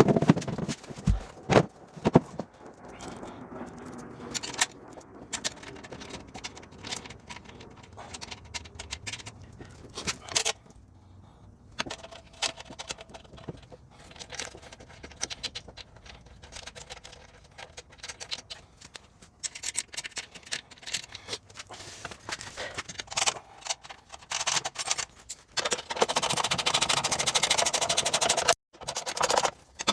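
Metal hand tools clicking and scraping on bolts and parts during assembly, with a louder, denser rattling stretch near the end that stops abruptly.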